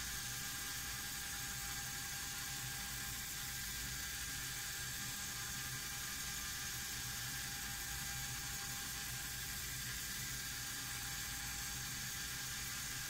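Small Lego electric motor and its gearing turning a Technic turntable, a steady whir with an even high tone.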